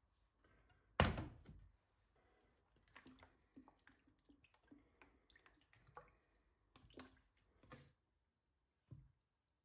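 Kitchen handling sounds: one heavy thud about a second in, then scattered light knocks and clicks as food and utensils are handled on the counter.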